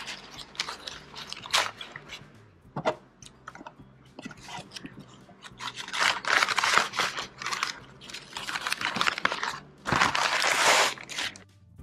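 Paper food wrapping and a thin plastic bag crinkling and rustling as a food packet is unwrapped by hand, in irregular crackly bursts that are loudest about six seconds in and again near the end.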